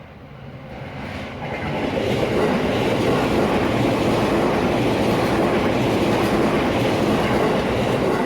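A JR Nambu Line electric commuter train passing over a level crossing, its wheels running on the rails. The loud rumble builds over the first two seconds, holds steady, and starts to fade at the very end.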